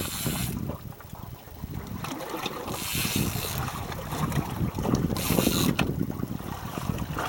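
Wind rumbling on the microphone aboard a small boat at sea, with three short hissing bursts near the start, about three seconds in and about five and a half seconds in.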